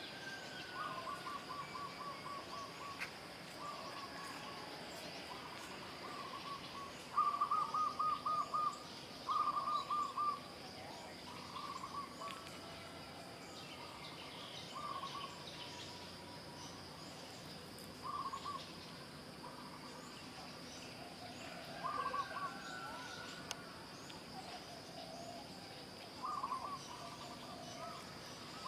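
Birds calling: repeated short bursts of rapid notes, loudest twice at about seven and nine seconds in, over a steady faint high hum.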